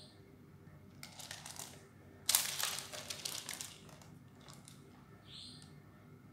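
Two short bursts of hard clicking and rattling, about a second in and again after two seconds, the second louder and longer.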